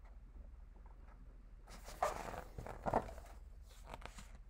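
Paper picture book being handled and moved, a soft rustling and scuffing with two stronger scuffs about two and three seconds in, over a low steady hum.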